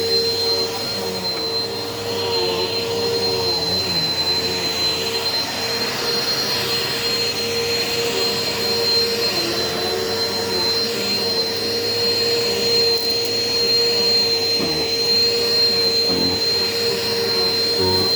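Eureka PowerSpeed bagless upright vacuum cleaner with an 8-amp motor running steadily: a constant hum with a high, steady whine on top.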